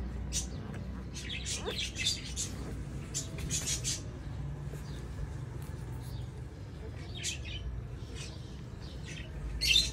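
Small birds chirping, a few short, high chirps at a time, with the loudest cluster near the end.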